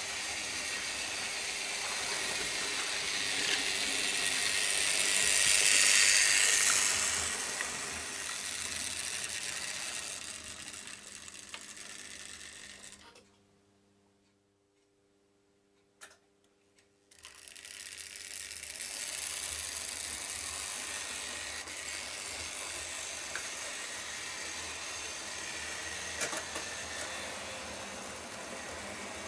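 Model railway trains running: the whir of small locomotive motors and the rattle of wheels over the rails. It grows loud as a train passes close about six seconds in and fades to near silence in the middle, with a couple of faint clicks. Then it starts up again steadily as the Rheingold train pulls away.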